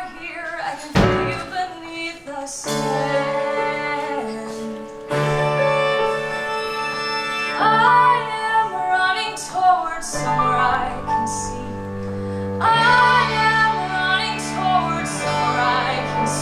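A woman singing a musical theatre song into a microphone with a live band. The accompaniment holds sustained chords, with a sharp hit about a second in and deeper bass notes joining about ten seconds in, while the voice holds long notes with vibrato.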